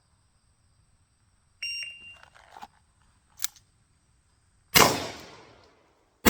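Shot timer beep, then a few light clicks and knocks of the single action revolver being drawn, then two revolver shots about a second and a half apart, each ringing out briefly; the second comes right at the end.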